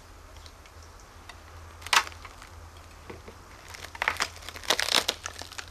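Thin aluminium sheet being handled and bent, with one sharp crack about two seconds in and a run of crinkling and crackling near the end.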